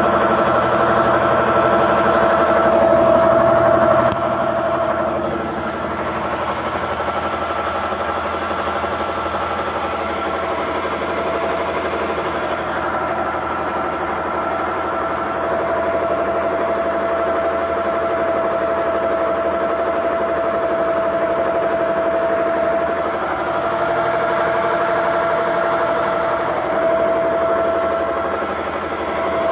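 Komatsu bulldozer's N855 diesel engine running steadily, with a steady high whine over it; the sound drops slightly about four seconds in.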